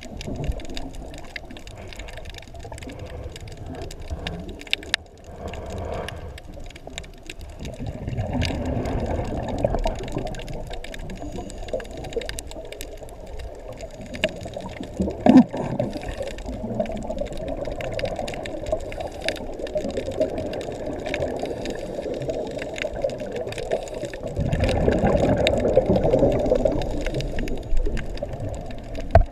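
Underwater ambience picked up by a submerged camera: a steady muffled water noise, sprinkled with faint scattered clicks and crackles, swelling louder twice, about eight seconds in and again near the end.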